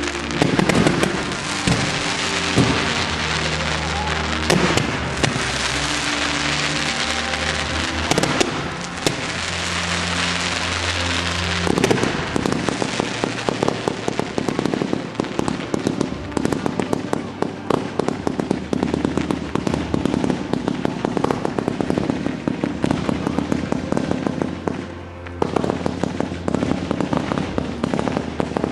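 Fireworks display: shells bursting with sharp bangs every few seconds, then from about twelve seconds in a dense, rapid crackling of crackling stars that carries on to the end.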